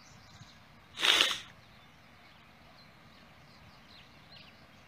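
A single sharp, noisy breath from a man holding back tears, about a second in and half a second long. Faint bird chirps in the background.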